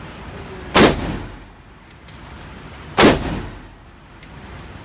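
Two gunshots about two seconds apart, each loud with a short ringing tail, with light metallic clinks between and after them.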